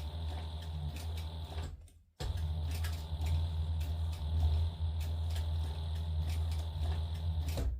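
Sewing machine motor running steadily as it stitches forward. It stops abruptly for a moment about two seconds in, starts again, and stops near the end.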